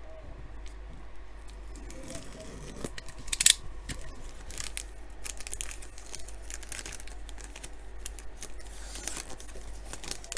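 Plastic card wrapping being cut open and crinkled, with a few sharp snips or clicks, the loudest about three and a half seconds in.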